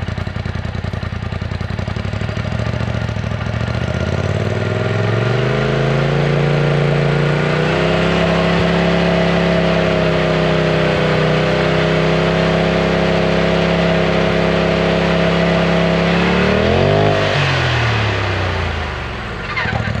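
Polaris RZR Turbo's engine through its stock (OEM) exhaust, measured for loudness. It idles, climbs steadily to about 4,000 rpm and holds there for several seconds at around 95 dB. Near the end it gives one quick rev and drops back to idle.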